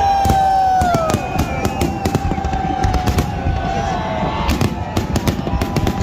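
Fireworks exploding in a rapid, uneven series of sharp bangs, with long tones that slide slowly down in pitch underneath.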